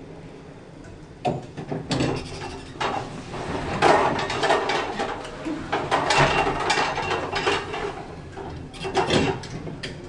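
Lift doors and their mechanism clattering and knocking in several bursts, starting about a second in and dying away near the end.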